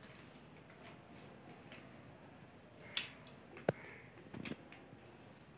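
Quiet close-up eating sounds of rice and chicken curry eaten by hand: fingers working the food on the plate and chewing, with a few short sharp clicks, the loudest a little past halfway.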